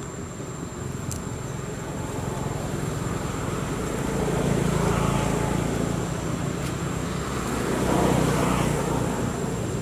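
Motor vehicles passing, a low engine rumble that swells twice, about halfway through and again near the end.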